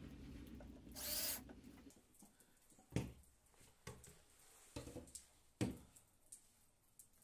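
A short rushing noise about a second in, then a few separate knocks and clunks as a laminate panel edged with aluminium angle is picked up and handled on a wooden workbench.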